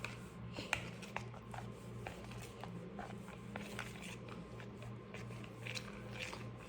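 Thick flour-and-water paste being stirred in a bowl: faint irregular scraping and light clicks of the utensil, with a steady low hum underneath.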